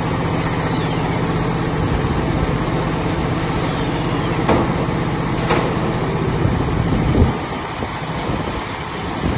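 A silage baler-wrapper machine running with a steady low motor hum, broken by two short high squeals that fall in pitch and a few sharp clicks. The low hum drops away about seven seconds in.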